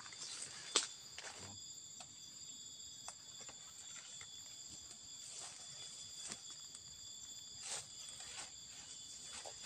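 Steady chorus of insects in several high tones, with scattered rustling and snapping of leaves and stems as cassava leaves are picked and handled; a sharp snap about a second in is the loudest.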